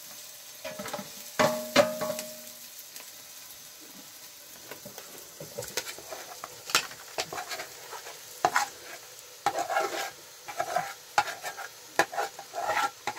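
Cooking: a utensil knocking and scraping against a pot, with a metallic clang that rings for about a second roughly one and a half seconds in, then a quicker run of knocks in the second half.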